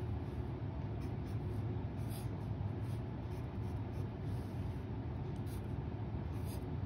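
Felt-tip pen writing on paper: a few short scratching strokes at intervals, over a steady low hum.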